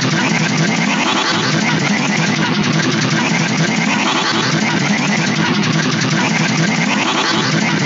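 Dense, distorted, heavily layered remix of cartoon audio, loud and unbroken, with a rising sweep that comes back about every two seconds.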